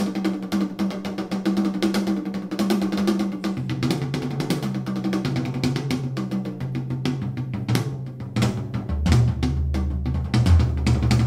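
Drum-heavy test music with a bass line playing through Edifier R1855DB bookshelf speakers with the subwoofer switched off. Rapid snare and kick hits run throughout, and the bass line drops to deeper notes about nine seconds in.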